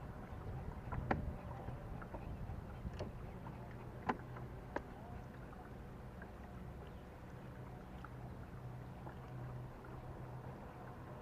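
Fishing boat on the water: a low, steady hum with a handful of short, sharp clicks and knocks.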